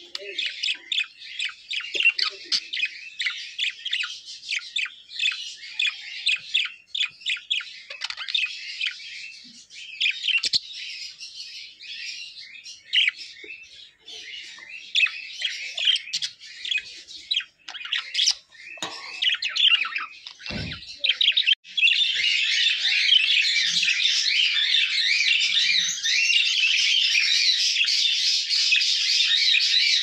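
Budgerigars chirping and warbling in quick, short notes. About twenty-two seconds in, the chatter turns dense and continuous. There is one brief soft thump just before.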